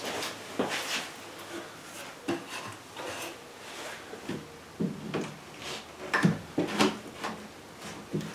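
Pallet-wood cabinet door being handled and set against the wooden cabinet frame: scattered wooden knocks and scraping, with the loudest knocks about six to seven seconds in.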